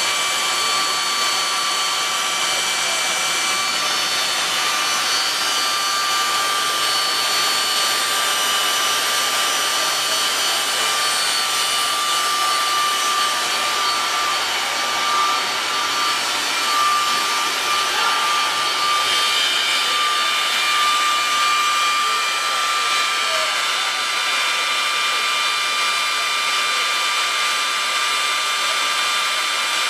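Steady machine noise: an even rush of air with several high, steady whining tones over it, holding the same level throughout.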